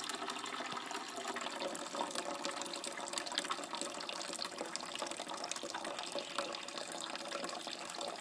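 Water pouring from a hole in a 2-liter bottle and running fast across an erosion model, a steady splashing trickle.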